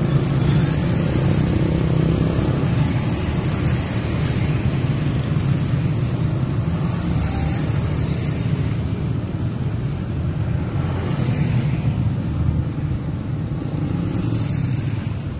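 Road traffic passing close by: a stream of motorcycles and scooters and an occasional car, engines and tyres running steadily.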